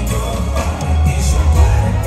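Live R&B concert music played loud through an arena sound system, with a heavy bass line.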